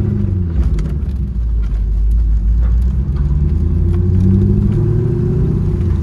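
Cammed C5 Corvette's 5.7-litre V8 rumbling, heard from inside the cabin, its pitch rising and falling with the revs.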